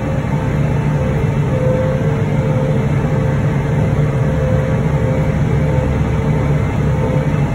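John Deere cotton picker running steadily as it drives, heard from inside the cab: a deep engine drone with a steady whine from the machine above it.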